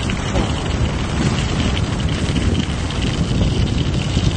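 Wind rushing and rumbling over a phone's microphone carried by a skier descending at speed, mixed with the hiss of skis sliding on snow; steady throughout.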